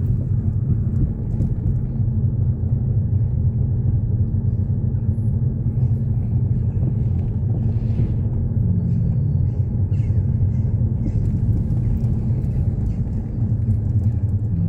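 Steady low rumble of a car's engine and tyres running slowly on a gravel lane, heard from inside the cabin, with faint scattered crackles over it.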